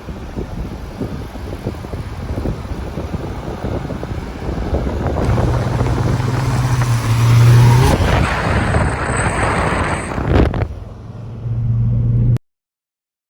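Datsun engine running through a newly fitted exhaust pipe. It builds to a louder rev with a steady drone about halfway through, eases off, then drones again before the sound cuts off suddenly near the end. Wind is buffeting the microphone.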